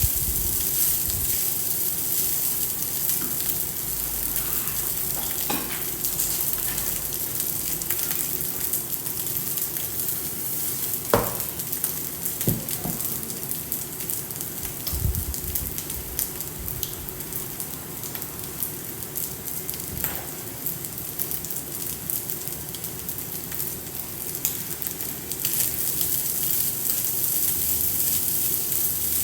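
Jollof fried rice frying in a pan: a steady sizzle and crackle of oil, with a few sharp knocks, the loudest about eleven seconds in.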